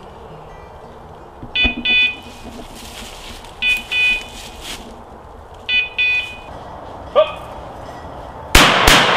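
Electronic beeper collar on a hunting dog sounding three double beeps, about two seconds apart. Near the end there is a loud sharp crack, followed by rustling noise.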